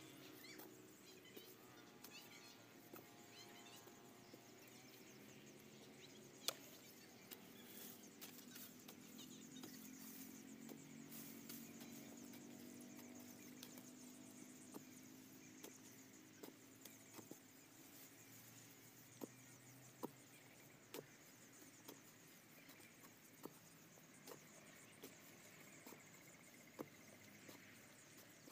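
A long metal digging bar stabbing into hard, dry soil, heard as scattered faint knocks and clicks, with one sharper knock about six seconds in and a run of them in the last ten seconds. A faint low drone sits under the middle part.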